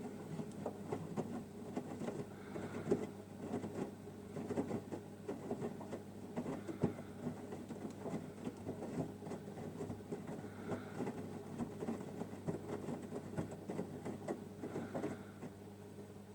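Samsung WW9000 (WW10H9600EX) front-loading washing machine mid-wash: a steady low hum under irregular sloshing and pattering of water and clothes in the turning drum. The owner takes the sound for the Ecobubble generator making bubbles.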